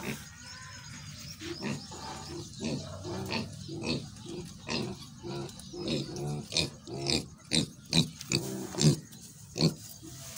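Young domestic pigs grunting in short, quick, irregular grunts while rooting in the dirt, the grunts growing louder in the second half.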